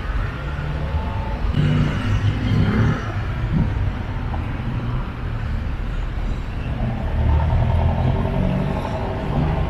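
Town-street traffic: car engines running and passing in a continuous low rumble, with one vehicle growing louder about seven seconds in.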